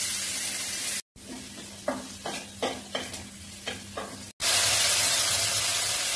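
Onions frying for a tadka in hot oil in a kadhai, with a steady sizzle. In the middle a metal spatula scrapes and knocks against the pan several times, and the sizzle is louder near the end. The sound breaks off abruptly twice for a moment.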